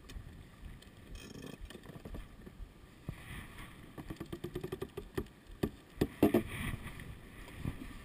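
Wind and water rushing around a racing sailboat in strong wind, with a run of quick clicks and knocks from deck gear as the crew work the sheets. There is a brief rising whine about halfway through and a sharp knock about six seconds in.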